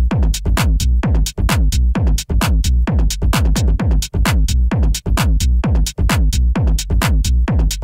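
Electronic club music from a DJ mix: a fast, dense drum pattern with pitch-dropping drum hits over a heavy sub-bass.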